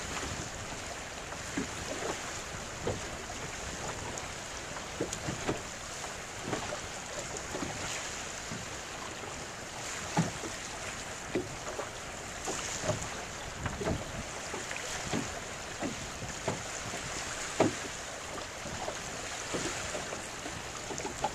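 Small waves slapping against a boat's hull in irregular knocks, a few each second, over a steady hiss of wind on the microphone.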